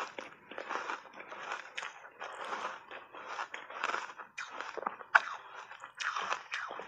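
Refrozen block ice coated in matcha powder being chewed and crunched, about two crunches a second, with one sharp click about five seconds in.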